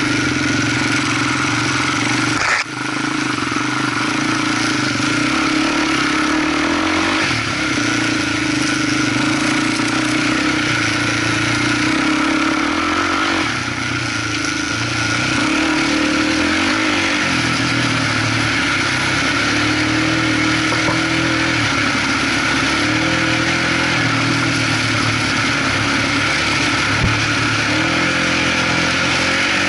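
Polaris Outlaw 525 IRS quad's single-cylinder four-stroke engine running under load, its pitch rising and falling with the throttle. A sharp knock about two and a half seconds in comes with a brief dip in the engine sound.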